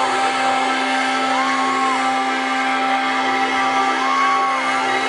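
Loud live hard rock played through a concert PA and overloading a phone microphone into a dense, distorted wash: heavily distorted guitars holding a steady drone, with a lead note that swells and bends twice.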